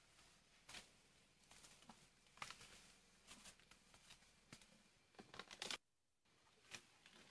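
Faint, irregular rustling and snapping of grass and bamboo leaves as an Asian elephant pulls at plants with its trunk while feeding.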